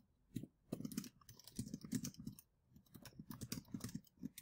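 Typing on a computer keyboard: a quick, irregular run of faint key clicks.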